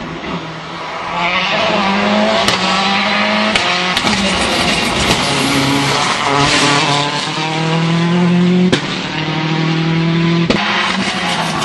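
Citroën C4 WRC rally car's turbocharged 2.0-litre four-cylinder engine revving hard as the car passes at speed, its pitch climbing and dropping again and again. Several sharp cracks cut through the engine note.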